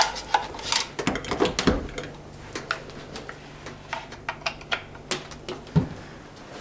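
Scattered light clicks and knocks from handling a small plastic EcoTracker radon monitor and setting it down on a stovetop. A low steady hum comes in about two seconds in.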